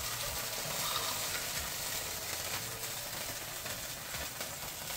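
Hot cooking oil sizzling steadily in a skillet after salmon fillets have been seared in it.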